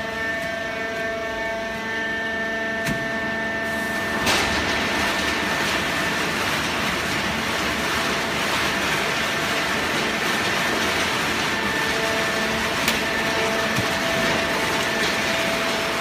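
Horizontal hydraulic waste-paper baler running, its motor and hydraulic pump giving a steady hum with a few held tones. About four seconds in, a louder rushing noise starts suddenly and holds, with occasional light clicks.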